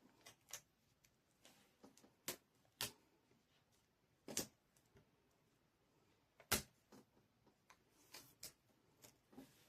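Scattered light taps and clicks of craft pieces being handled and set down on a plate charger, against near silence.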